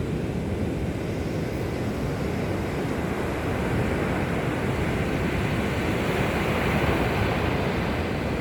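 Sea surf washing on the shore, a steady rush that swells about halfway through, with low wind rumble on the microphone.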